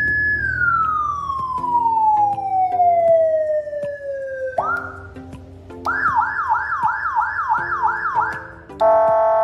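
Whelen Alpha 15-watt motorcycle siren being run through its tones. A high tone is held, then falls slowly over about four seconds and sweeps quickly back up. From about six seconds in it gives a fast yelp of roughly two to three sweeps a second, and near the end it switches to a steady horn-like tone.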